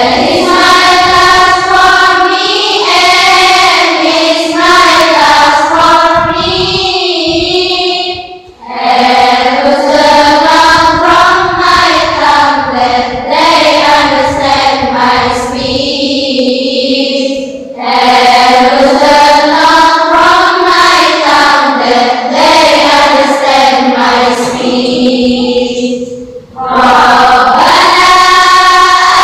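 Voices singing a song in long, held notes with a wavering pitch, in phrases of about nine seconds, each ending in a brief break.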